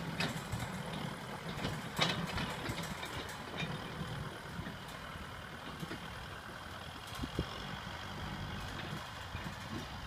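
Kubota M6040 SU tractor's diesel engine running steadily as it pulls a disc plough through dry soil. A sharp knock sounds about two seconds in, with a few fainter knocks later.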